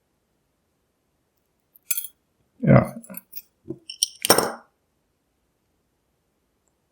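Small metal padlock parts and a screwdriver clinking and clicking against each other as the lock is taken apart: a few light clinks about two seconds in, and a louder clattering cluster around four seconds in.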